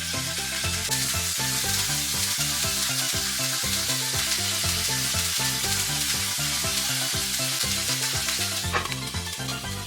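Food sizzling in a hot frying pan, a steady crackling hiss that swells about a second in and drops away near the end, with background music underneath.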